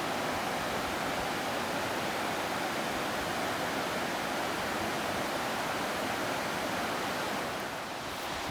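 Steady rushing noise of a large waterfall, even and unbroken, easing slightly near the end.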